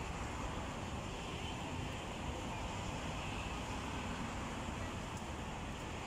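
Steady outdoor background noise: a low, even rumble with a hiss over it, without a distinct bird call.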